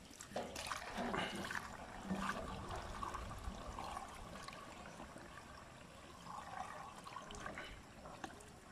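Water poured from a plastic bucket into the filler opening of a metal knapsack sprayer tank: a faint trickling and splashing as the tank fills.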